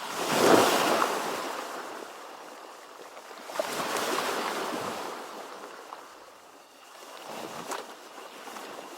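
Ocean surf: waves breaking and washing in, in three surges, the loudest at the very start, the next about three and a half seconds in, and a weaker one near the end.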